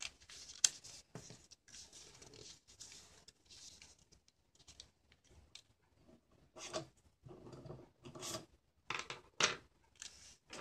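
A sheet of origami paper rustling and sliding under the fingers as it is folded and creased by hand. In the second half this gives way to a series of short, separate rubbing scrapes.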